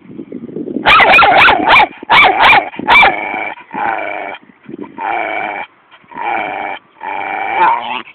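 Jack Russell–Staffordshire bull terrier cross dog 'talking': a low grumble, then a run of loud, sharp barks about a second in, followed by four drawn-out whining howls, each under a second long.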